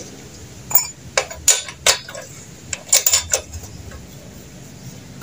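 Metal tools and engine parts clinking and knocking as a brush cutter engine is worked on by hand: a series of sharp clinks, a cluster in the first two seconds and another about three seconds in.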